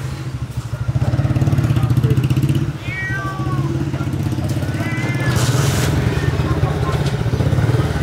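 Persian cats meowing twice, short arching cries, over a steady engine running throughout.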